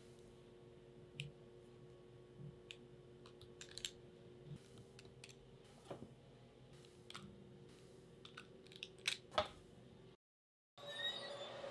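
Scattered light clicks and soft taps as cookie dough balls are set down on a metal baking tray, over a faint steady hum. The sound drops out entirely for a moment about ten seconds in.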